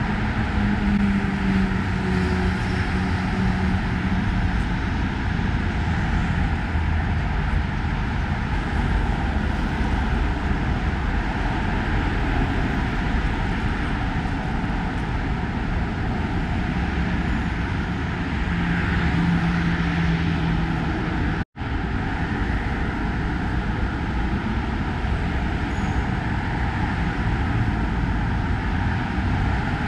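Steady roar of road traffic on a busy city avenue, with the engine hum of passing vehicles rising a little near the start and again about two-thirds through. The sound cuts out completely for an instant a little after that.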